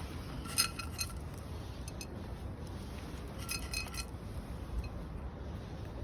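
Two brief bursts of small metal pieces jingling, about three seconds apart, over a steady low rumble.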